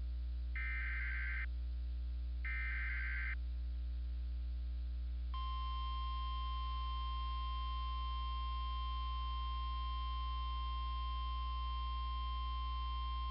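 Emergency Alert System header: two short buzzing data bursts, then about five seconds in a steady single-pitch warning alarm tone of the NOAA Weather Radio type. The tone sounds for a Special Marine Warning, over a constant low hum.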